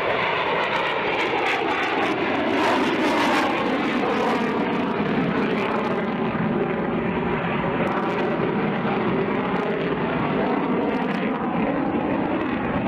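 F-16V Viper fighter jet in flight: steady jet engine noise, its pitch gliding slowly.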